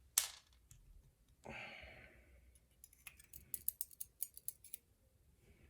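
A run of small, sharp metallic clicks from lock pins and parts being handled as a pin-tumbler lock is taken apart, with a single click near the start and a brief soft rustle about a second and a half in.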